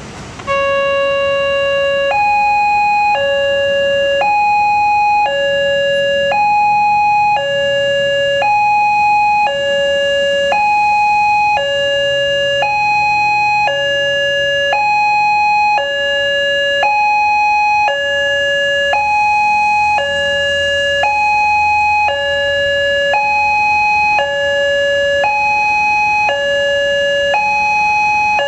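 Railway level-crossing warning alarm sounding: an electronic two-tone signal that starts suddenly about half a second in and alternates between a lower and a higher tone about once a second, warning that a train is approaching and the barrier is closing.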